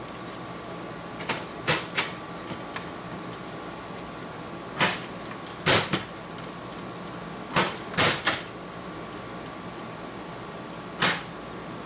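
Slot machine's metal belly door being shut and latched, about ten sharp clacks in small clusters, over a steady electrical hum from the machine. The door is being worked to test the door sensor behind a 'door open' fault.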